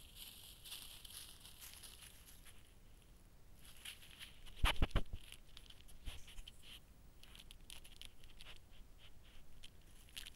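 Close-up scratching and rustling on a trail camera, the sound of a fisher pawing at it, with a cluster of several loud knocks about halfway through.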